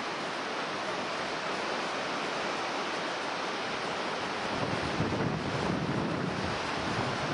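Rough storm surf breaking on a rocky shore, with strong wind buffeting the microphone; the low wind rumble grows heavier about halfway through.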